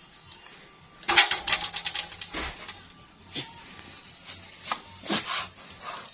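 Large knife cutting through the head of an oilfish on a wooden cutting board: short bursts of rasping, crackling strokes as the blade works through skin and bone, about a second in, around three and a half seconds and near five seconds, with a dull knock against the board about two and a half seconds in.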